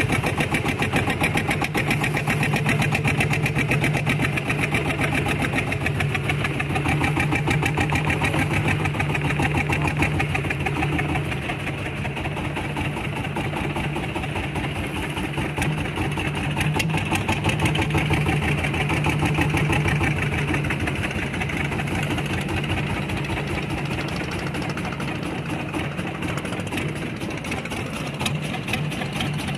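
A small fishing boat's engine running steadily, with a fast, even firing beat.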